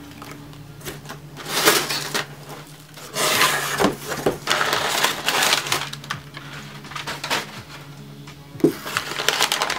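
Crumpled brown kraft packing paper rustling and crinkling as hands work into a cardboard box and fold back its flaps, in several bursts, the longest about three seconds in.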